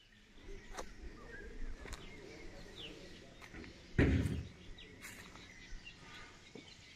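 Outdoor ambience with scattered short bird chirps and a few light clicks, and one dull thump about four seconds in.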